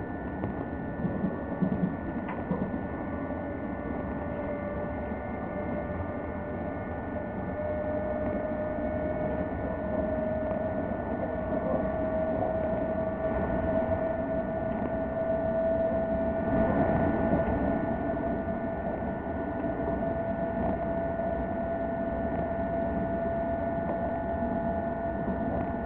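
Inside a Škoda EJ575 double-deck electric train running at speed: a steady rumble of the wheels on the rails, with a whine from the traction motors that slowly rises in pitch as the train gathers speed. A few light knocks come near the start.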